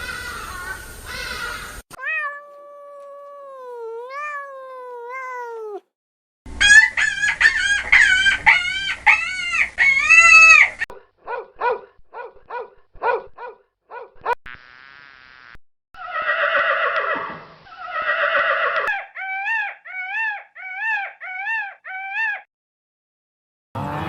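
A string of different animal calls cut together one after another: a gliding, wavering call, a loud run of quick repeated calls, short pulses, then two long wavering calls and a series of short repeated ones.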